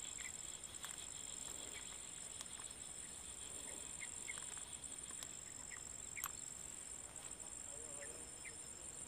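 Faint outdoor ambience: a steady high-pitched insect drone, with a few short faint chirps and a single sharp click about six seconds in.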